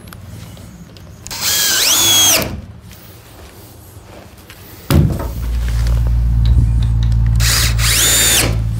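Cordless drill-driver whirring in two short runs of about a second each, the pitch rising, holding, then dropping off. From about five seconds in, a steady low rumble sets in, starting with a thump.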